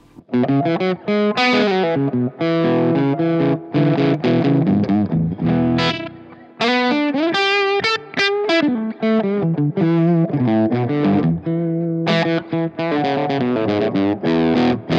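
Electric guitar with overdrive from a Roger Mayer Voodoo-1 pedal: a distorted lead line of quick single notes with bends, moving into ringing chords near the end.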